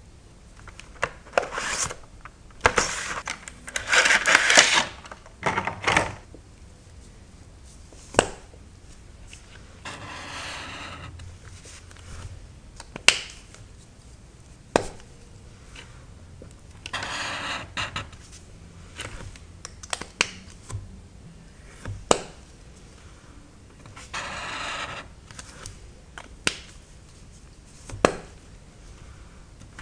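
Plastic highlighter caps clicking off and on with single sharp clicks, between short stretches of highlighter tips scratching across paper as colours are swatched. A busier run of rubbing and scratching fills the first six seconds.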